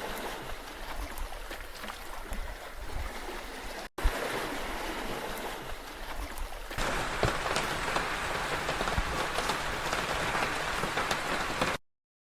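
Running water, a steady rushing hiss, in short spliced clips: a sharp cut about four seconds in, the sound turning brighter and a little louder near seven seconds, then dead silence just before the end.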